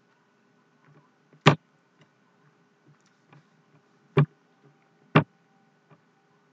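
Computer mouse clicking: three sharp clicks, about a second and a half in and then at about four and five seconds, with a few faint ticks between.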